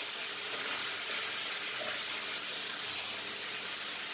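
Mutton pieces and sliced onions frying in a nonstick kadai with a steady sizzle, stirred with a spatula.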